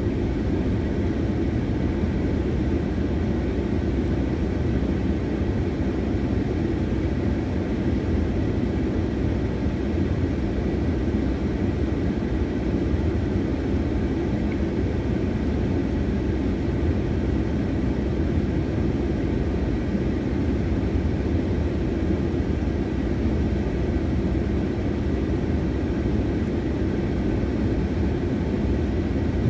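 Steady low rumble and hum inside a car's cabin as the car stands waiting at a traffic light.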